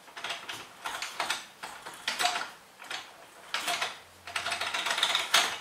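Yamaha Zuma 125 engine with a big-bore kit being turned over by hand: irregular mechanical clicking and ratcheting rasps from the timing chain, cam sprocket and valvetrain. It is a check for binding before the head bolts are torqued, and nothing is binding up.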